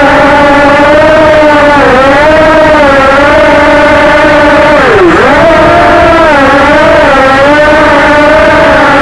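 A person imitating a quadcopter's motors with the mouth: a loud, continuous buzzing hum whose pitch wavers up and down, dipping sharply and climbing back about five seconds in.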